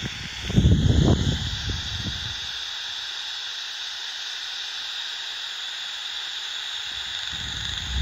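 Steady hiss from a heterodyne bat detector tuned to 45 kHz, with a faint even tone. There is low rumbling noise for the first two seconds or so and again near the end.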